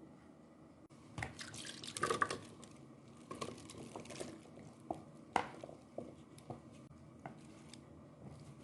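Kitchen liquid dripping and splashing, with a cluster of small clicks and splashes about a second in and scattered sharp ticks after.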